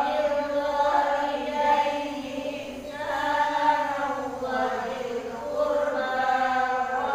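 A man recites the Qur'an in melodic tilawah style, holding long ornamented notes that waver in pitch, with a short dip about two and a half seconds in.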